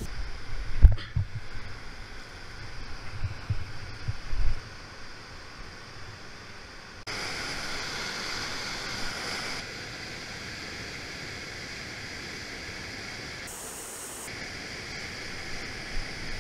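Rushing whitewater of a river rapid and waterfall: a steady roar of foaming water, with a few low thumps in the first five seconds. About seven seconds in, the roar suddenly turns louder and brighter, then eases back a couple of seconds later.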